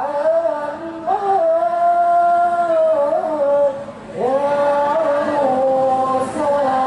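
A man's solo voice singing a sholawat into a microphone, holding long notes with sliding ornaments. There is a short break for breath about four seconds in.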